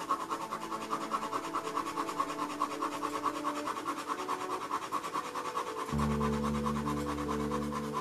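Ballpoint pen scribbling back and forth on paper in quick, even strokes, shading a patch of dark tone. Soft steady tones sit underneath, with lower sustained notes coming in about six seconds in.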